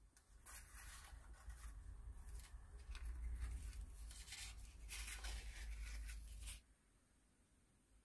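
Small black card-stock tiles being handled on a wooden tabletop: paper sliding and rubbing over paper and wood in a run of short rustles. The rustling stops abruptly about six and a half seconds in.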